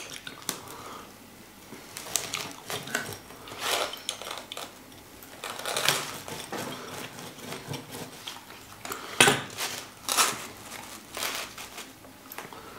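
A metal utensil cutting and scraping through a pizza against its cardboard box, making irregular scrapes and clicks. The sharpest knocks come about three quarters of the way in.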